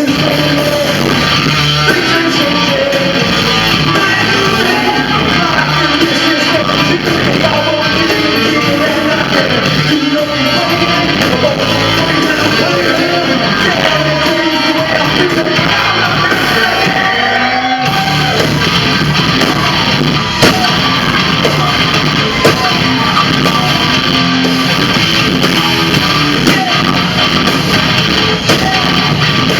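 Live rock band playing, with guitars and sung and yelled vocals, loud and continuous; the music breaks briefly about eighteen seconds in.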